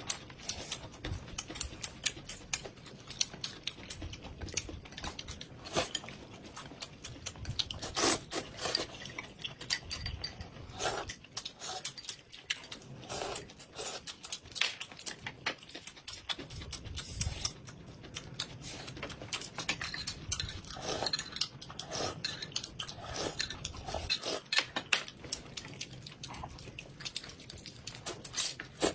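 Close-up eating sounds from two people: irregular chewing, biting and slurping, with occasional clicks of chopsticks against dishes. Near the end one noodle slurp.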